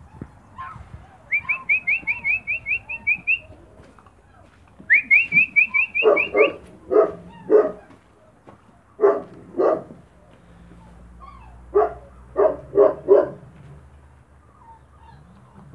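A bird gives two quick runs of short rising chirps. From about six seconds in, the loudest sound takes over: Spanish mastiff puppies yapping, short barks coming singly or two and three in a row.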